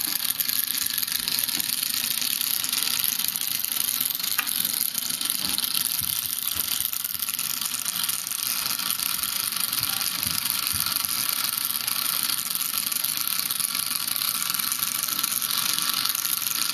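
A small pager-motor vibrobot buzzing steadily, its wire legs rattling on a wooden tabletop as it skitters about.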